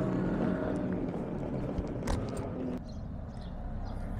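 Motorcycle engines running as bikes ride off, with two sharp knocks a little past halfway; the engine noise drops suddenly soon after.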